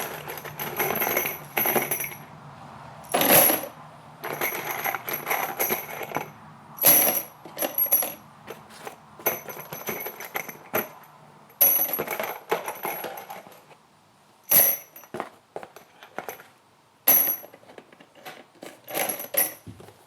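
Loose 4-inch 20-penny nails poured and dropped by the handful into the plastic bins of a Milwaukee Packout organizer, clattering and jingling in repeated bursts with short pauses between.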